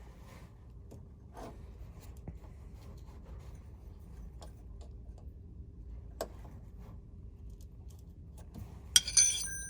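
A few faint clicks and taps of hands working on metal parking brake cable hardware under a truck. Near the end comes a loud metallic clank with a brief ringing.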